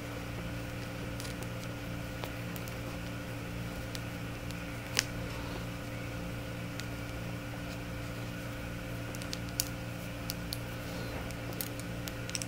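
Steady electrical hum of a room appliance, with scattered light clicks of long fingernails against a crochet hook as the hands work yarn; the sharpest click comes about five seconds in, and several more come near the end.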